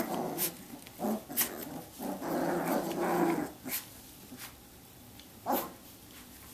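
Young Samoyed puppies, 26 days old, play-growling as they wrestle, in two bouts over the first three and a half seconds, with a few sharp clicks; then it goes quieter.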